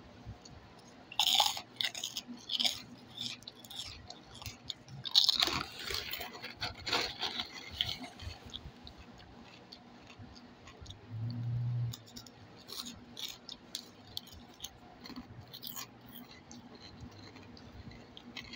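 Crisp puffed pork rinds being bitten and chewed with sharp crunches and crackles, loudest about a second in and again about five seconds in, then thinning out to softer chewing. A brief low hum about eleven seconds in.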